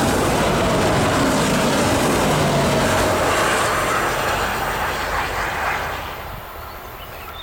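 A DSB IC3 diesel multiple unit passing and pulling away, its engines and wheels on the rails running loud. A faint whine sinks slightly in pitch in the first few seconds, and the sound fades away over the last two seconds as the train recedes.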